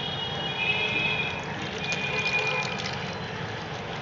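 Soaking water drained off from a steel pot of soaked whole moong beans, trickling in a thin stream into water in a plastic basin. A steady high whistle-like tone sounds along with it on and off through the first three seconds.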